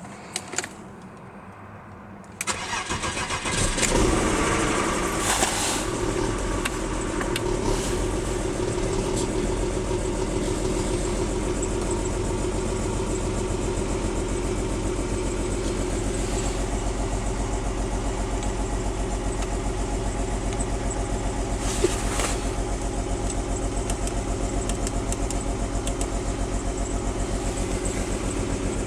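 1994 BMW 325i (E36) 2.5-litre straight-six cold-started: a couple of seconds of cranking, the engine catches about four seconds in and flares up, then settles into a steady idle with an even pulsing in its note. This is the rough cold idle that the owner means to trace to vacuum lines, spark plugs or coil packs.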